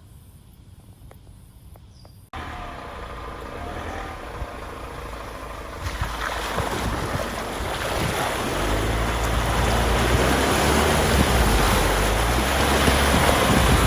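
Off-road vehicle driving along a rough dirt track: a rushing noise of engine, tyres and wind that starts abruptly after a quiet couple of seconds and grows louder, with a deep rumble joining about two-thirds of the way through.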